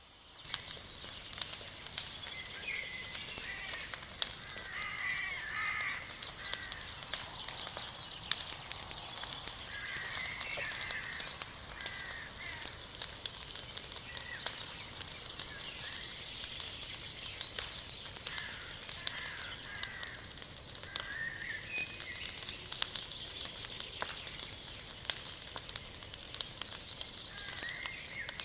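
Wood fire burning, crackling and popping continuously with a steady hiss. Birds chirp at intervals over it.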